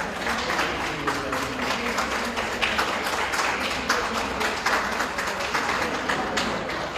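Audience applauding steadily, dying away around the end.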